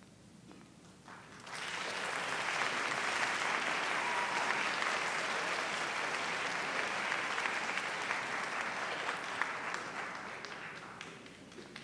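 Audience applauding in a hall after a band piece ends. The applause begins about a second and a half in, holds steady, and dies away near the end.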